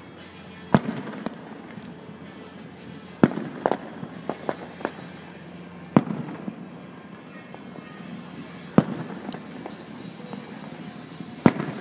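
Aerial firework shells bursting: five sharp booms spaced about every two to three seconds, with a few smaller pops and crackles in between.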